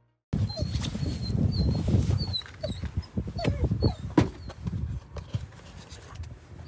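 A dog whining and whimpering in short rising cries, over rumbling and knocking noise.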